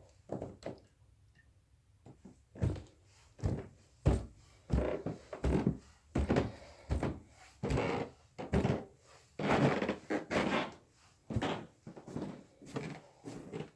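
Footsteps: a steady run of dull thuds, about one and a half a second, starting a couple of seconds in.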